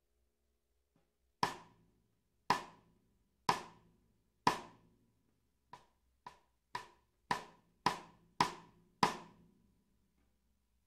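Sonor Select Force 14x6.5 snare drum with wood hoops struck with single strokes. There are four strong hits about a second apart, then seven quicker hits that start soft and grow louder, each ringing briefly.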